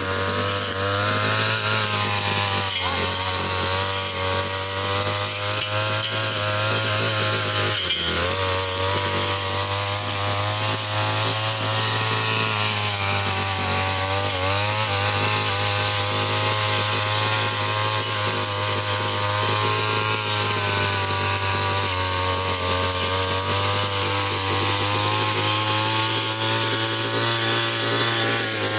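Backpack brush cutter's small petrol engine running at high revs as its spinning head cuts grass and weeds, the pitch wavering slightly under the load of the grass and dipping briefly about eight seconds in. A few sharp ticks come in the first eight seconds.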